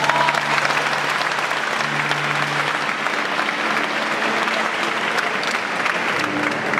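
Audience applauding steadily. About six seconds in, the first plucked guitar and mandolin notes come in under the clapping.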